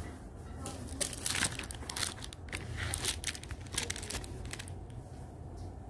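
Irregular rustling and crackling with sharp clicks, thickest in the first few seconds, over a steady low hum.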